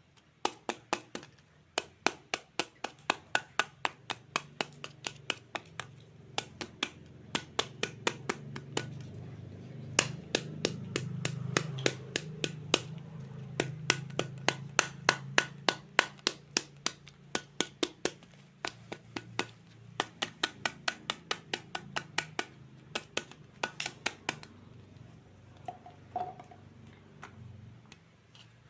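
Toy knife chopping toy fruit on a cutting board: a long run of sharp clicks, about three a second, thinning out to a few near the end.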